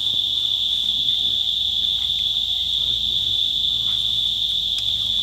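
A steady, high-pitched shrill of insects, an unbroken chorus that holds one pitch throughout.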